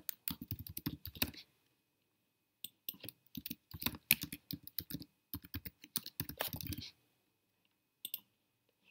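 Typing on a computer keyboard: two quick runs of keystrokes with a short pause between, then a single click about eight seconds in.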